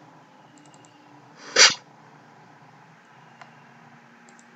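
A single short, loud burst of noise about a second and a half in, with faint mouse clicks around it.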